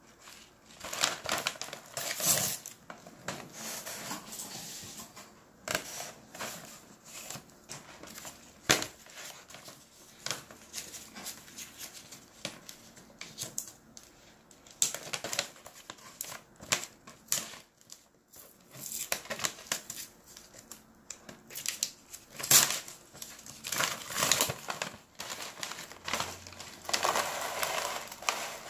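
Close-up crunching and chewing of dried shiitake mushroom and jujube pieces, with the rustle of paper packaging. Near the end, a dense crackly rattle as dried pieces slide from a tipped jar into the mouth.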